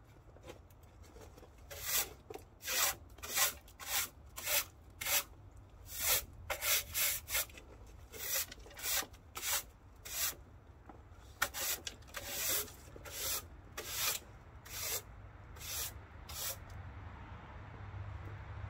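Broom sweeping snow off the wooden plank deck of a small rail flatcar: a run of brisk scraping strokes, about two a second, starting about two seconds in and stopping near the end.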